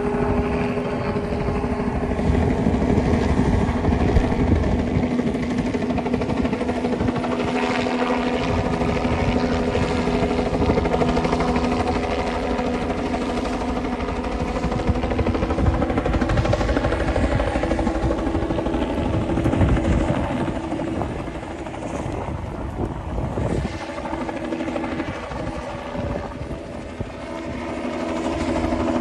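Steady low mechanical rumble with a steady hum, like an engine running. It eases off for a few seconds about three-quarters of the way through and builds again near the end.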